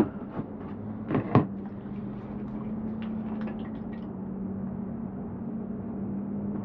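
Knocks and rustling from things being handled in a truck bed, the loudest a pair of knocks about a second in, then a few light clicks around three to four seconds in as a drink bottle is picked up, over a steady low hum.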